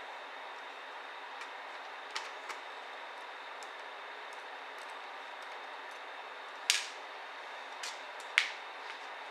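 Scattered sharp clicks and taps of small laptop parts being handled during disassembly, over a steady hiss. Two light clicks come about two seconds in, and two louder ones come near seven and eight and a half seconds.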